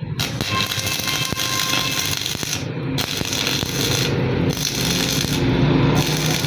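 Stick-welding arc crackling and sizzling as an E6013 rod burns, over a low welder hum. The sharp top of the crackle dips briefly about every one and a half seconds.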